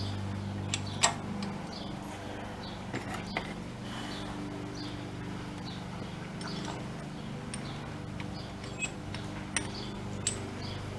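Scattered light metallic clicks and clinks of tools and brake parts being handled, over a steady low hum.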